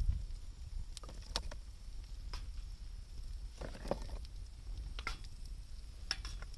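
Wood fire crackling, with scattered sharp pops at irregular intervals over a low steady rumble.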